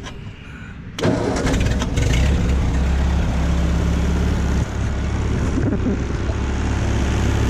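Ford 8N tractor's four-cylinder flathead engine cranks and catches about a second in, then runs steadily. Its level dips slightly about four and a half seconds in.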